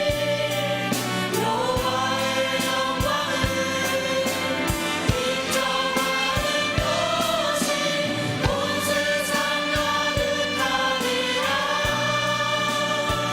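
Contemporary worship song: a choir singing with band accompaniment over a steady beat.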